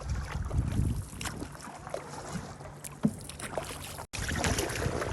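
Canoe out on a lake: water splashing and lapping with scattered small paddle splashes, over a low wind rumble on the microphone. The sound drops out for an instant about four seconds in.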